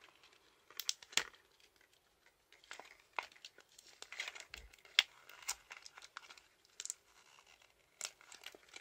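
Paper packaging crinkling and tearing in irregular sharp crackles as a glued-on paper backing is peeled off an acrylic keychain by hand.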